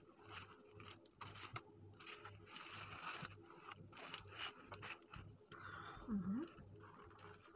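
Soft scraping, rustling and light clicks of handmade soap flowers and leaves being handled as a small wicker basket bouquet is turned on a cloth-covered table. A short hummed 'hm' comes about six seconds in.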